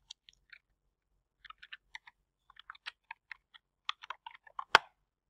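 Typing on a computer keyboard: a few keystrokes, a short pause, then a quicker run of keystrokes, with one much louder click near the end.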